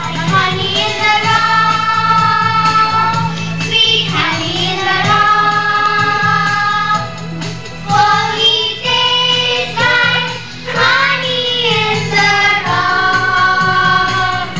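A song sung by several voices, with long held notes that glide between pitches over a steady low accompaniment.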